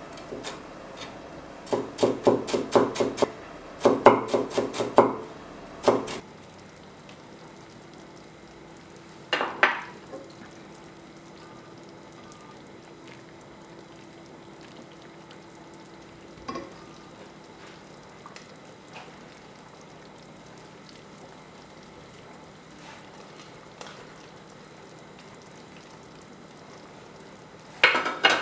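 Cleaver chopping green onions and dill on a bamboo cutting board: two quick runs of chops, about five or six a second, in the first five seconds. A quieter stretch follows with a few single knocks, then a clatter near the end.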